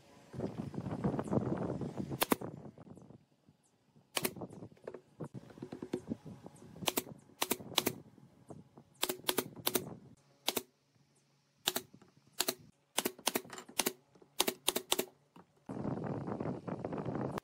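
Nail gun shooting brads into pine slats: about twenty sharp, single shots, several in quick runs of three or four. Wood pieces scrape and rub on the table at the start and again near the end.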